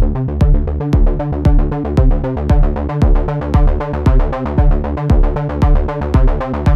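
Electronic background music with a steady drum-machine beat, about two kicks a second.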